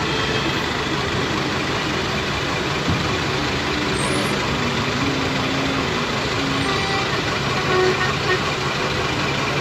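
Busy road traffic: vehicle engines running over a steady hiss, with a few short horn toots, one louder about eight seconds in.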